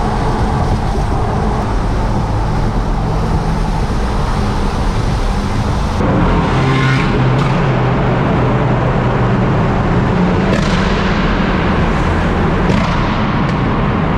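BMW M car driving on a wet road: steady engine drone under constant tyre hiss and spray. The engine note changes about six seconds in, and brief swishes come twice near the end.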